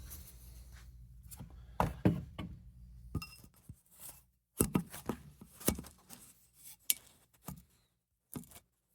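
Handling noise: a string of uneven knocks, taps and clicks as the phone recording the video is moved and set in place, with a low hum that stops about three seconds in.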